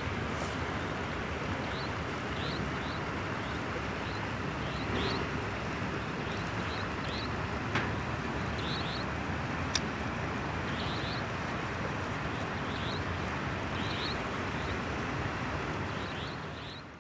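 Steady rushing outdoor noise with faint, short, high chirps scattered through it and a couple of sharp clicks near the middle.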